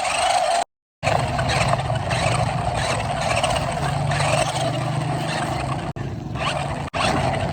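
Steady motor-vehicle engine noise, broken near one second in by a brief gap of complete silence and by short dips later on.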